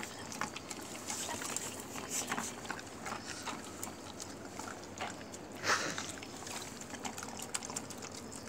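Stray dogs lapping and chewing wet rice soaked in chicken broth and milk from a tray: a run of small wet clicks and slurps, with one louder burst about two-thirds of the way in.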